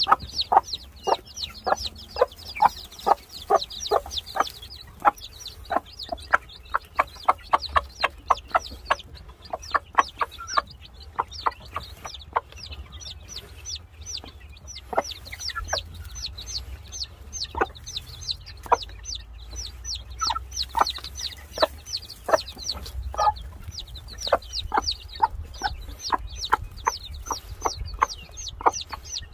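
Game-fowl chicks peeping: a continuous flurry of short, sharp, falling calls, several a second, from a group of chicks.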